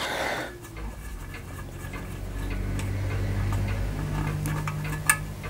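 Small metallic clicks and light taps from a screwdriver working the level plug out of a small brass model steam engine boiler, over a low steady hum.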